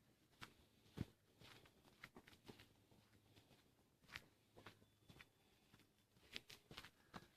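Near silence, with faint, irregular clicks and taps scattered throughout.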